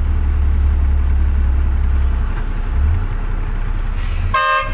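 Truck engine running, heard from inside the cab, its low rumble changing about two and a half seconds in as the truck moves off. Near the end a vehicle horn gives a short blast.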